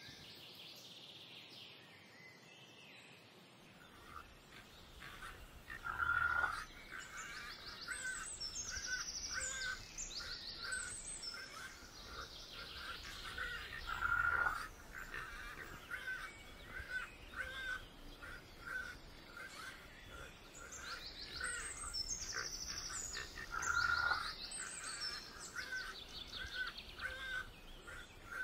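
Songbirds singing outdoors: high trilled phrases, a short note repeated about twice a second, and three louder calls spaced several seconds apart.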